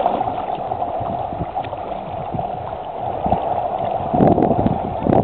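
Shallow sea water lapping and sloshing, with splashes from legs wading through it that grow busier about four seconds in.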